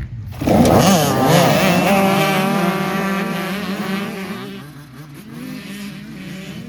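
Off-road Mini race car's engine at full throttle, cutting in suddenly about half a second in. Its pitch swings up and down for the first couple of seconds, then settles into a steady drone that slowly fades.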